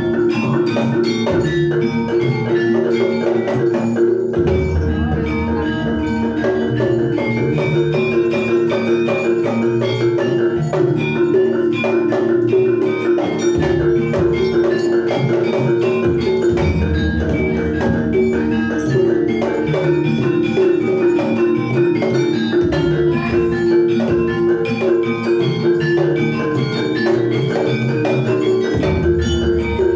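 Live Javanese jaranan gamelan music: bronze metallophones play a fast repeating melody over kendang hand-drumming. Deep low notes swell in every few seconds.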